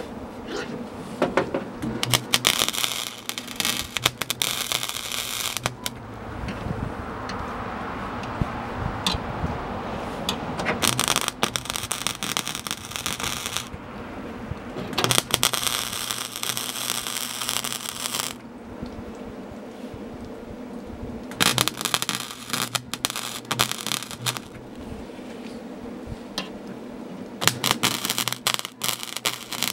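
MIG welder filling holes in the sheet-steel inner door panel: about five short bursts of crackling arc, each a few seconds long, with a steady low hum underneath.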